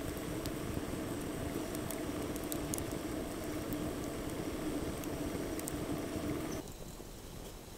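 Campfire burning up around a lidded metal pot: a steady low rushing with sharp crackles from the burning wood. The rushing drops away near the end, leaving fainter crackling.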